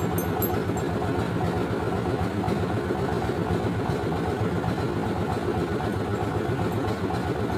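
An engine running steadily at idle, with an even, rapid pulsing.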